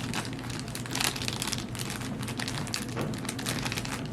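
Crinkling and rustling handling noise, with many faint small ticks, as small parts are picked up and handled.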